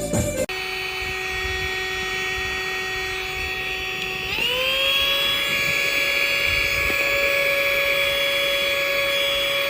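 Handheld cordless mini vacuum cleaner's motor running with a steady whine. About four seconds in it speeds up, gliding to a higher, slightly louder whine that then holds steady.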